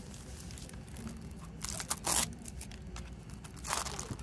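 Plastic shrink-wrap on a CD jewel case being torn open and crinkled, with a loud rip about two seconds in and a second crinkling rustle near the end.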